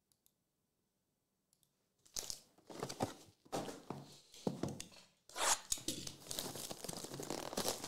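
Near silence for about two seconds, then plastic wrapping on a trading-card box being torn and crinkled, in irregular crackling bursts that run almost without a break over the last few seconds.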